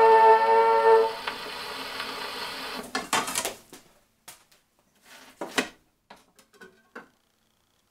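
An HMV 102 portable wind-up gramophone at the end of a record: a final held brass chord plays through it for about a second, then the needle runs on in steady surface hiss. About three seconds in there is a loud scrape as the soundbox is lifted and the record comes off, followed by a few clicks and knocks of handling the soundbox and setting another record on the turntable.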